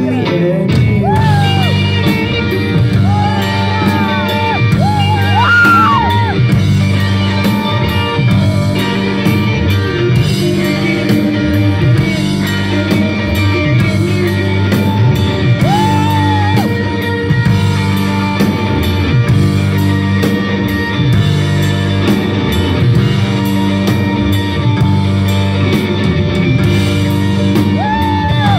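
Live rock band playing loud: electric guitars over bass and drums.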